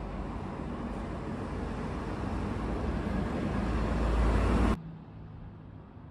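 A road vehicle going by in the street: a steady noise that grows louder as it nears, then cuts off suddenly near the end, leaving quieter street background.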